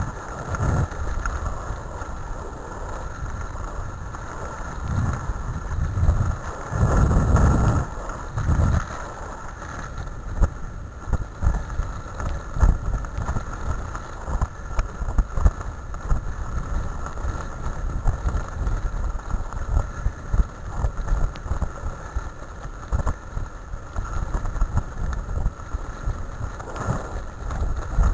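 Wheeled dog-sled training rig running over a rough dirt trail, rattling and knocking constantly, with wind buffeting the microphone, heaviest about five to nine seconds in.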